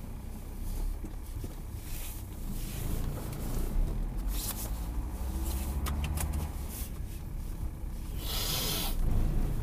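Car engine and running noise heard from inside the cabin as the car moves off from a standstill: a steady low rumble that strengthens as it starts to roll. A short burst of hiss comes near the end.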